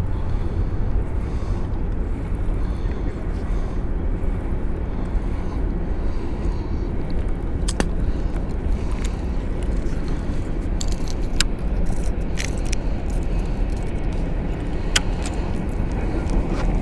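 Steady low rumble, with a few sharp clicks in the second half from the baitcasting reel and rod being handled during casting and reeling.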